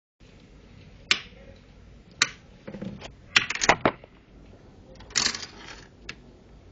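Sharp metallic clicks and rattles as a steel wire survival saw with its metal end rings is handled: single clicks, then a quick cluster of clinks and a short rattle near the middle, and a brief rustling clink about five seconds in.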